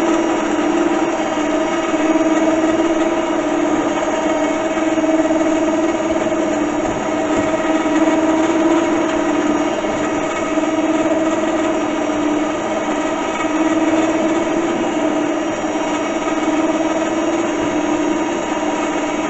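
Electric winch motor on a UTV running steadily under power with a constant whine, spooling the tangled winch cable back onto the drum.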